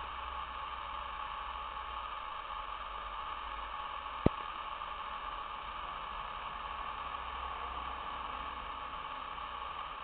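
Steady recording hiss with a low hum underneath, and one sharp click about four seconds in.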